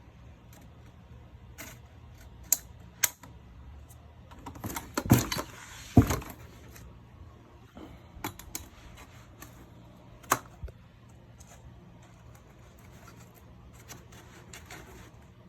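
Scattered clicks and knocks of a portable toilet chair's parts being handled and fitted together during assembly, with a louder clatter about five to six seconds in and another sharp knock around ten seconds.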